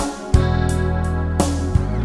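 Instrumental passage of a Thai pop song: sustained keyboard chords over a steady bass, with two sharp beats about a third of a second in and near the end.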